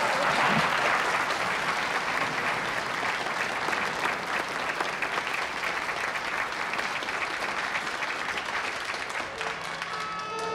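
Large audience applauding, a dense steady clapping that eases slightly toward the end.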